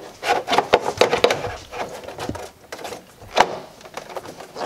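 Irregular hard plastic clicks and knocks as the BMW E90's plastic air intake ducting is worked loose by hand, with a sharper knock about three and a half seconds in.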